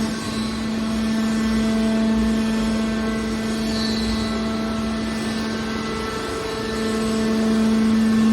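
Hydraulic metal baler's power unit running: a steady mechanical hum with a constant whine, growing louder over the last second or so.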